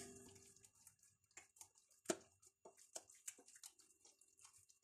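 Very faint, irregular wet squishes of a hand kneading spice marinade into raw chicken fillets in a bowl.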